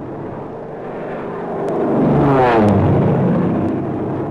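Propeller aircraft flying low overhead: its engine drone swells to a peak about halfway through, then drops in pitch and fades as it passes.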